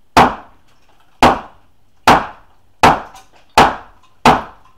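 A hammer striking wooden wall framing overhead in six sharp blows, roughly one a second and quickening slightly toward the end, as the framing is knocked apart during demolition.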